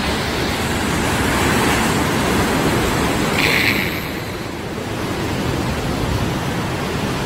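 Steady rushing noise of wind and sea surf, with a brief higher-pitched sound about halfway through.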